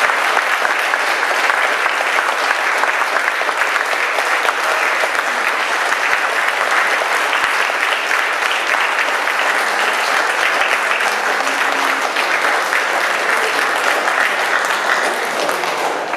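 Audience applauding: steady, dense clapping that keeps up without a break.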